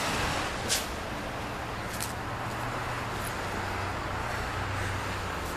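Steady street traffic noise with a low, even engine hum and a couple of brief faint clicks.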